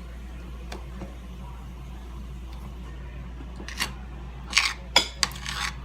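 Sounds of eating a meal at a table: a few short sharp clicks and taps after about halfway, over a steady low hum.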